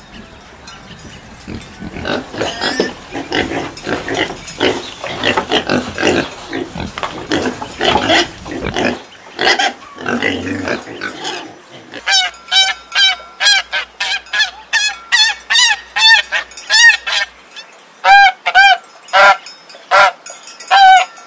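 A group of pigs grunting and squealing for the first half, then, a little past the middle, domestic geese honking in quick repeated runs of loud, nasal calls, several a second.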